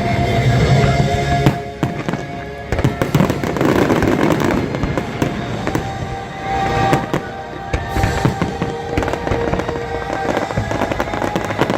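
Fireworks bursting in rapid succession, sharp bangs and crackling over orchestral show music playing through park loudspeakers.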